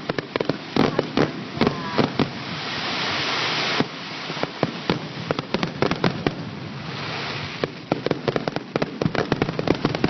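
Fireworks going off: many rapid, irregular cracks and pops, with stretches of steady hiss about two seconds in and again near the seventh second.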